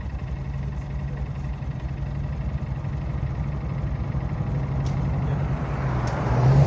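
Honda Monkey minibike's small single-cylinder engine running steadily, getting louder near the end.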